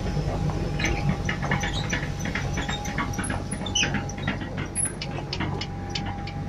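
Hitachi excavator's diesel engine running steadily with a constant whine, overlaid by many short metallic squeaks and clicks from the machine as it moves with a load in its bucket.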